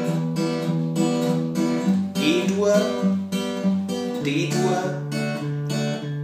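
Acoustic guitar fingerpicked in an even rhythm: a bass note, then the three highest strings plucked together, repeated. The chord changes about every two and a half seconds as it cycles through E minor, G, D and Asus2.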